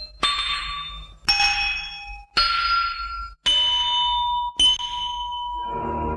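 Bell-like metallic strikes, about one a second, each ringing at its own pitch and fading away. Near the end a lower, fuller tone swells in.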